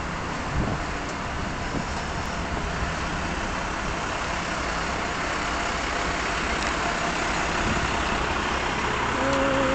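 Diesel engine of a 1960 Routemaster double-decker bus running at low revs as the bus creeps slowly past at close range, getting gradually louder.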